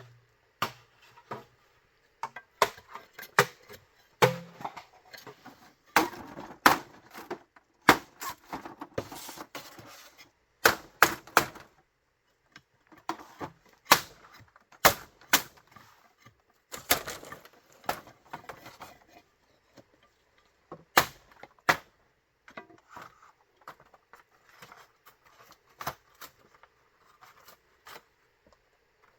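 Bamboo being chopped and split: irregular sharp knocks and cracks, some strokes trailing into a brief splintering crackle, with pauses between bursts of work.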